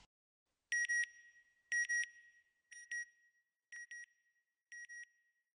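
High electronic beeps: a quick double beep about once a second, five times, each repeat fainter than the last like a fading echo.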